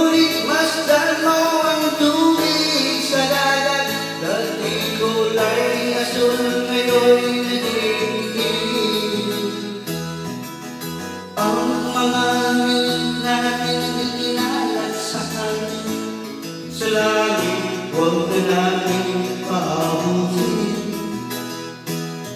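A man singing a Tagalog song into a handheld microphone over instrumental backing music.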